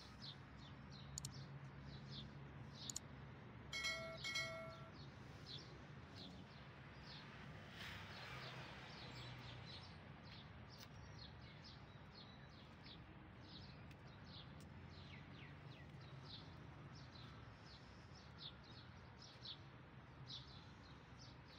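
Small birds chirping faintly, many short high chirps scattered throughout over a low steady hum. Two short, flat-pitched tones sound about four seconds in.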